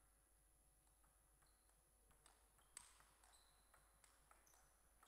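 Very faint table tennis rally: the ball clicks off the rackets and the table a few times a second, starting about two seconds in, with the sharpest hit just under three seconds in.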